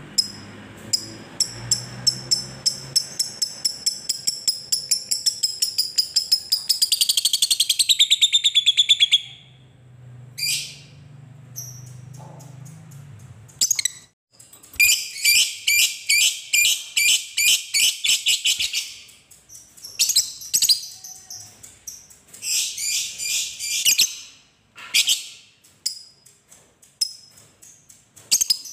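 Fischer's lovebird singing its long chattering 'ngekek' song: separate sharp chirps that speed up into a fast rattling trill dropping in pitch, then after a short lull, long runs of rapid chatter and a few short chirps.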